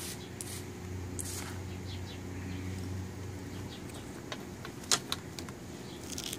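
A hand sprayer's wand hissing in short bursts in the first second or so, misting neem oil solution onto the orchid leaves. About four to five and a half seconds in come a few sharp ticks, the loudest near five seconds.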